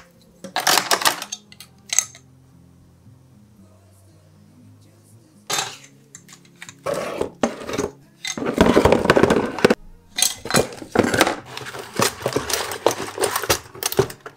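Metal cutlery and kitchen utensils clattering and rattling in a plastic cutlery tray as a kitchen drawer is handled and sorted. The clatter comes in several bursts, with a quiet spell after the first couple of seconds and the longest, densest rattling in the second half.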